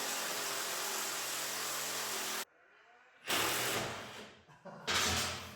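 Ridgid cordless power tool running to back out the snowmobile's rear suspension bolts: one steady run of about three seconds that cuts off suddenly, then two shorter bursts.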